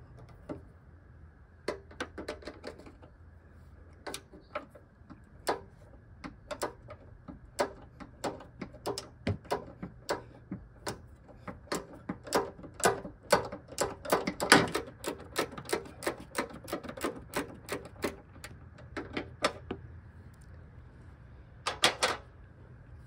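Ratcheting combination wrench clicking on its back-strokes as it turns out a hood hinge bolt, the metal clicks irregular at first and then coming quickly, two or three a second, through the middle.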